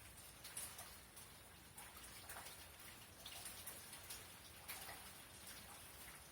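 Light rain during a thunderstorm: a faint steady hiss with individual drops landing irregularly, a few each second; no thunder.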